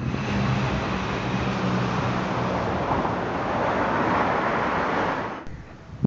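A motor vehicle passing close: a low engine hum at first, then rushing road noise that swells and drops away abruptly about five seconds in.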